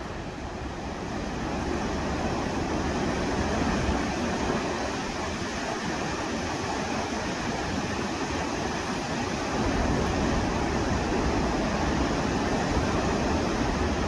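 The Rhine Falls, a very large river waterfall, giving a steady deep rushing roar of falling and churning water. It grows louder about a second and a half in, then holds.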